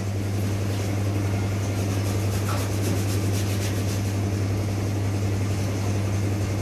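Air compressor running steadily with a low, even hum while the spray gun is idle.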